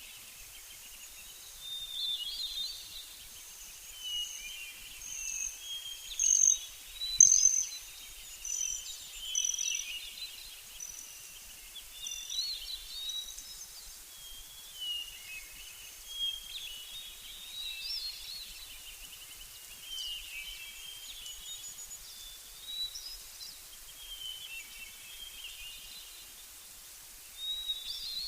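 Small birds singing: a string of short chirps and trills, loudest about six to eight seconds in.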